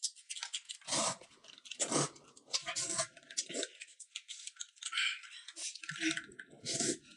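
Close-up eating sounds: noodles being slurped and chewed, in noisy bursts about once a second with small clicks between.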